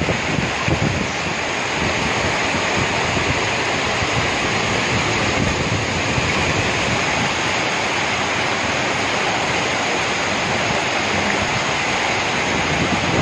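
Floodwater from a heavy rainstorm rushing down a street in a fast, churning torrent, a steady loud rush of water.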